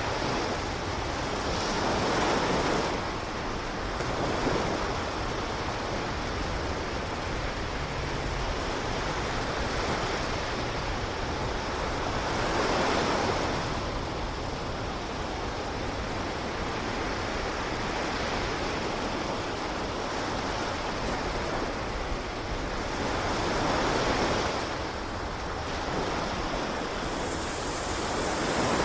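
Ocean surf: a steady wash of waves with louder swells every several seconds.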